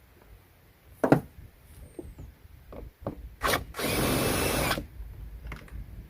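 Handheld power tool running for about a second, likely driving out a 10mm fastener during door-panel removal. Before it come a few clicks and one sharp knock of tools being handled.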